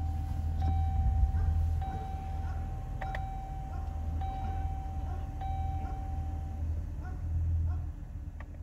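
A repeating electronic chime, one ding about every 1.2 seconds, each ringing on into the next, stopping about two-thirds of the way through, over a steady low hum. Near the end come a few light clicks of buttons being pressed on a car radio head unit.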